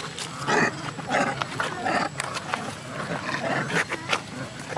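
A troop of long-tailed macaques calling: many short squeals and grunts that bend up and down in pitch, with a few sharp clicks among them.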